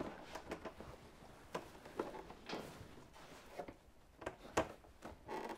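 Faint, scattered soft knocks and clicks of a motorcycle rider's seat being positioned and pressed down onto the bike's tail section by gloved hands.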